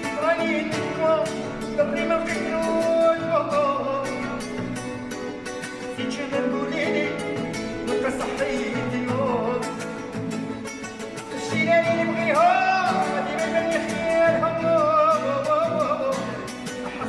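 Background music: a song, with a wavering melody over instruments and a steady beat.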